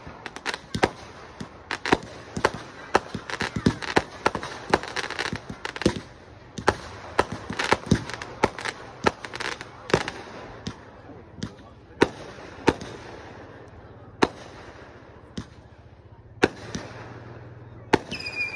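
Fireworks going off: a rapid string of sharp bangs and crackles for the first ten seconds or so, then single bangs spaced a second or more apart.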